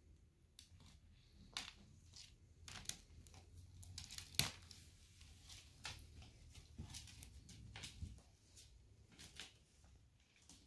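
Faint, scattered scratches and clicks of an Argentine black-and-white tegu's claws on a concrete floor as it walks, with one sharper click about four and a half seconds in, over a low room hum.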